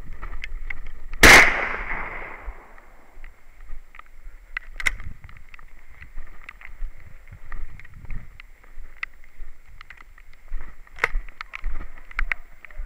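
A single close gunshot from a hunting gun about a second in, its report dying away over about a second, followed by scattered light clicks and rustles.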